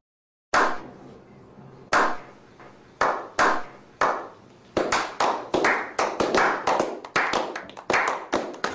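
A slow clap by a small group of men: single claps a second or more apart at first, quickening into several people clapping together, each clap echoing.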